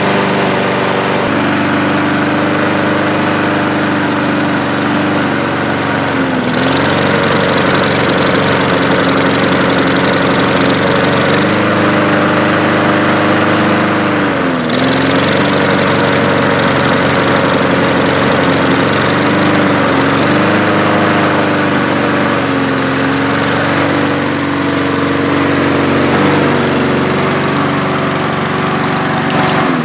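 Walk-behind lawn mower's small four-stroke engine running steadily at speed with its oil- and gas-soaked air filter off. Its pitch dips briefly three times, about a third of the way in, near halfway and about two-thirds through.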